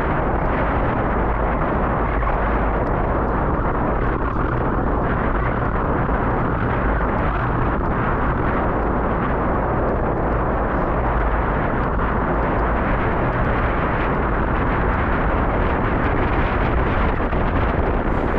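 Wind buffeting the microphone while cycling: a steady, loud rushing rumble, heaviest in the deep low end.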